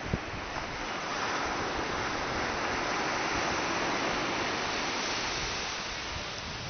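Ocean surf and wind rushing, swelling about a second in and easing off near the end. A short knock comes just at the start.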